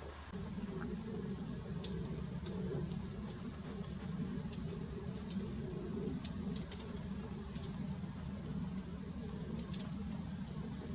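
Many brief, very high-pitched squeaks and chirps from small animals, several a second, over a steady low rumble.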